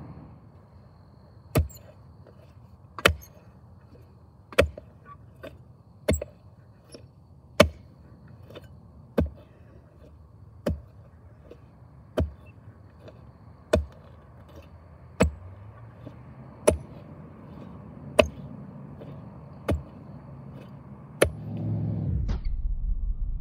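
A post-hole digger's blades striking into hard clay soil, a sharp chop about every one and a half seconds, fourteen strokes in a row. A low rumble comes up near the end.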